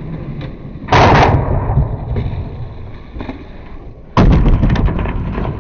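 Skateboards on asphalt: two loud hits of a board slamming down, about a second in and about four seconds in, each followed by a rattling roll of the wheels, with rolling rumble in between.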